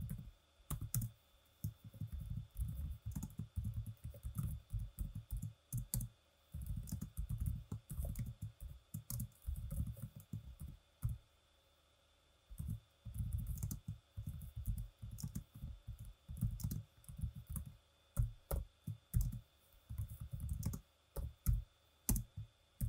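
Computer keyboard typing in quick runs of keystrokes, broken by short pauses, the longest about eleven seconds in.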